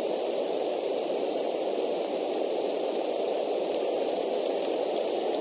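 Steady rain picked up by the nest camera's microphone: a constant hiss with no change in level and a few faint ticks of drops near the end.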